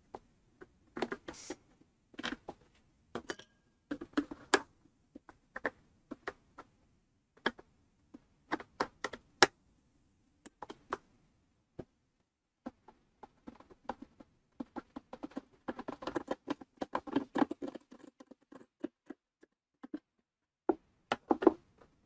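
Scattered clicks, taps and light knocks of a Torx screwdriver working screws and the black plastic shroud of a pancake air compressor being shifted by hand, busiest a few seconds before the end.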